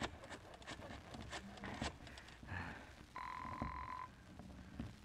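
Telephone sound effect in an old radio drama: a few clicks as the phone is dialled, then a buzzing ring tone about a second long starting about three seconds in, heard again at the very end.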